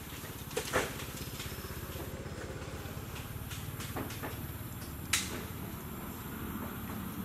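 Steady low rumble, with a few short sharp crackles; the loudest comes about five seconds in.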